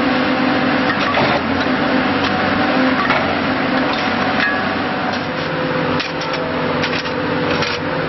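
Excavator engine running steadily while its tie inserter attachment pushes a wooden railroad tie through the ballast, with scraping and several knocks of wood against stone and steel.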